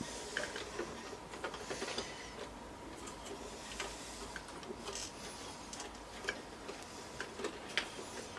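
Scattered light clicks and rustling of power cables and plastic connectors being handled inside a desktop computer case.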